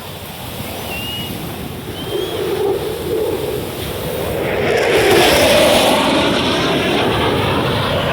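Airplane engine noise swelling as an aircraft flies past, loudest about five seconds in, over surf and wind on the microphone.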